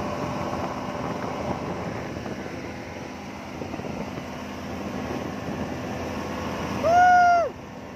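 Speedboat's outboard motor running at speed with the rush of the wake and wind. Near the end comes one loud pitched tone lasting about half a second, which rises briefly, holds, then drops away.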